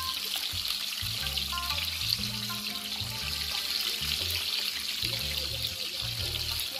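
Fish frying in hot oil, a steady sizzle, under background music with a stepping bass line.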